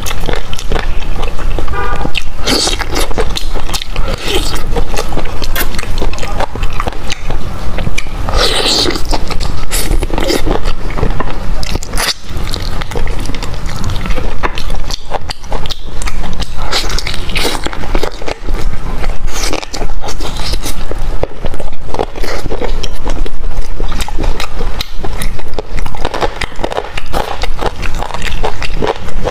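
Close-miked eating: biting into and chewing braised meat on the bone, a dense run of sharp clicks and crackles.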